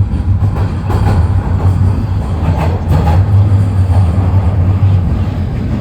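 Toronto Rocket subway train on TTC Line 1 running between stations, heard from inside the car: a loud, steady low rumble with scattered clicks.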